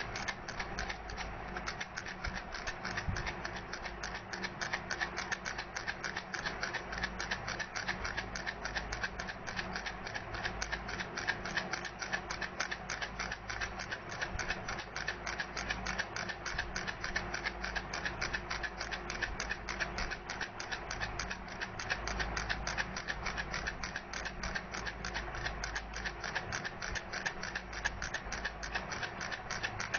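Baby rattle shaken steadily, its beads or pellets clicking in a quick, even rhythm.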